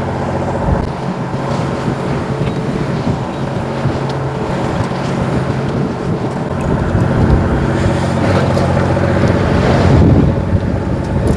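Fishing boat's engine running steadily with a low hum, with wind noise on the microphone.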